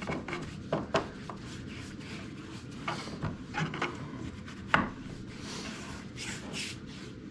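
Wooden tool chest being handled: soft rubbing and scraping of hand work on the wood, broken by a few light knocks, the sharpest about five seconds in.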